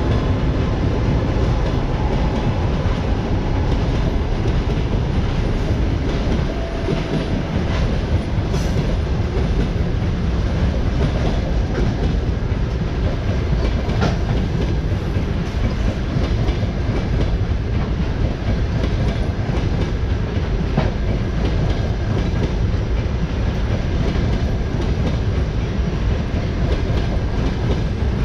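Passenger coaches of a long-distance express train rolling past: a steady rumble of wheels on rail with frequent clicks as the wheels pass over rail joints.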